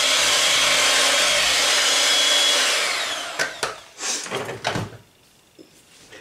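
Electric hand mixer running steadily in a bowl of butter, sugar and flour, working them into fine streusel crumbs. About three seconds in it is switched off and winds down with a falling whine, followed by a few knocks and clatters as the mixer is lifted out and put down.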